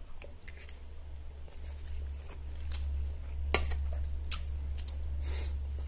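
Close-up chewing and wet mouth sounds of a mouthful of rice and catfish, with scattered small clicks and one sharper click about three and a half seconds in. A short hiss comes near the end, over a steady low hum.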